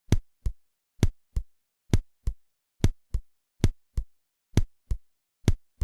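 Heart sounds: a louder first heart sound followed about a third of a second later by a softer second sound, about seven beats at roughly 70 a minute. The rhythm is almost regular, its minimal arrhythmia practically unnoticeable: the near-regular beat that 4:1 atrial flutter, atrial fibrillation with minimal arrhythmia or slight sinus respiratory arrhythmia can give.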